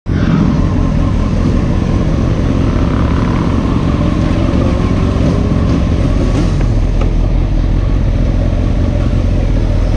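Honda CBR929RR's inline-four engine idling steadily with the bike standing still, heard close up from a camera mounted on the tank.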